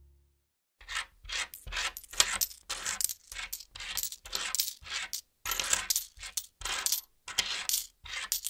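Coins clinking and dropping, a quick irregular run of small metallic jingles that starts about a second in and keeps going until just before the end.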